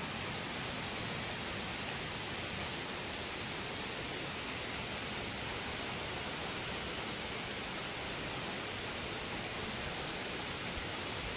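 Rain falling steadily during a thunderstorm, an even hiss.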